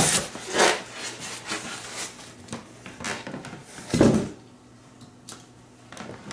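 Styrofoam packing being pulled out of a cardboard TV box, scraping and rubbing against the cardboard in several short bursts, then a dull thump about four seconds in.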